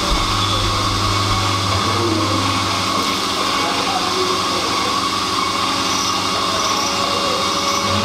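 A steady machine hum with a constant whine, over which milk is poured from a bucket into a steel measuring jug and the jug is emptied into a milk can.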